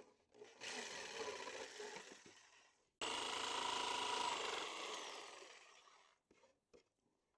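DeWalt DW331 corded jigsaw cutting a notch in rough 7/8-inch cedar board, in two runs: the first fades out about two and a half seconds in, and the second starts sharply about three seconds in, then drops in pitch and winds down by about six seconds as the cut is finished. A few light clicks follow.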